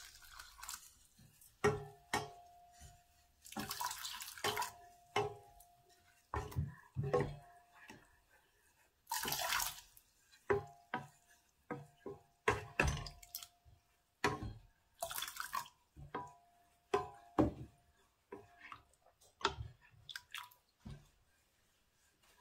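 Wooden spoon stirring oats and water in a stainless steel saucepan. Its repeated knocks and scrapes against the pan make the steel ring briefly, and a few short splashes of water are poured in between.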